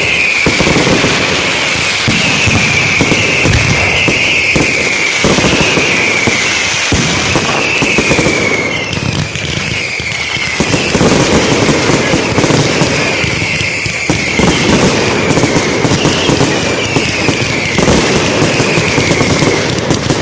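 Fireworks display going off: continuous crackling and bangs, with a high whistling that repeats about once a second through the first half and returns near the end.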